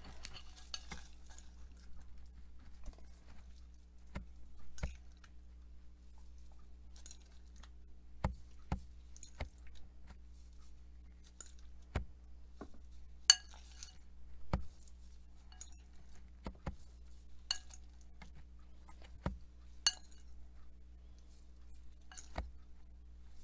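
Metal fork clinking against a glass bowl as chopped omelette is scooped out and spread: irregular sharp clinks every second or two, one louder clink about halfway through.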